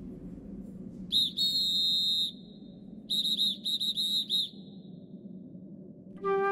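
High-pitched whistle-like calls over a steady low rumble: one long call about a second in, then five short chirps at the same pitch a couple of seconds later. A flute tune starts near the end.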